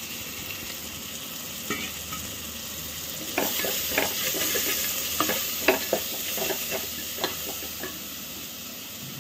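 Onion-tomato masala sizzling in oil in an aluminium pressure cooker while a wooden spatula stirs it. A run of spatula scrapes and knocks against the pot comes from about three to seven seconds in.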